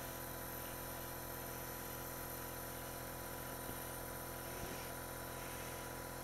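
An oxygen concentrator's compressor running with a steady, even hum.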